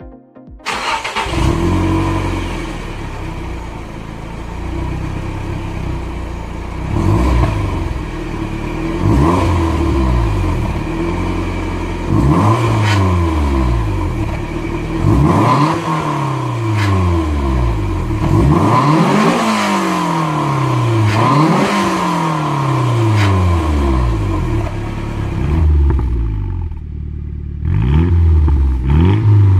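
Nissan Silvia's SR20DET turbocharged 2.0-litre inline-four engine revving, its pitch climbing and dropping back again and again over a dozen or so revs, settling into a steadier note near the end.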